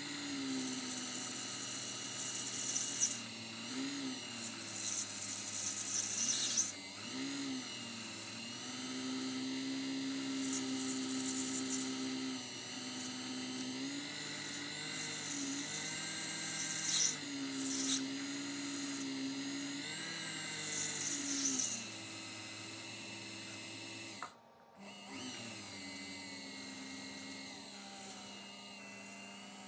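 Small watchmaker's lathe motor whining, its pitch shifting as the speed changes, with stretches of high hiss as a graver cuts a new bushing down to diameter. About three-quarters through the sound briefly drops out, then the motor runs on more quietly.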